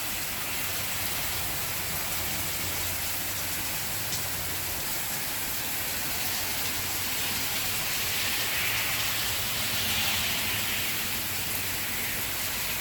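Heavy downpour: rain falling steadily and evenly, swelling slightly about two-thirds of the way through.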